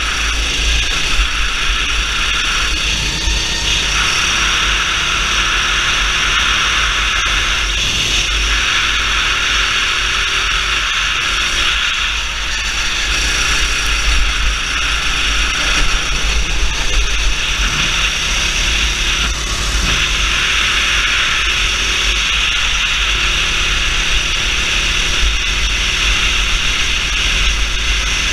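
Kart engine running hard at racing speed, its pitch rising and falling as the kart accelerates and slows through the corners, under heavy wind noise on the onboard microphone.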